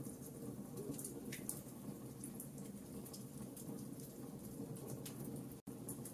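Wood fire in a fireplace crackling, with scattered sharp pops and snaps over a steady low rumble of burning. The sound cuts out for an instant about five and a half seconds in.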